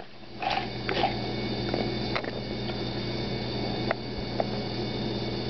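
A few short, light clicks over a steady low electrical hum.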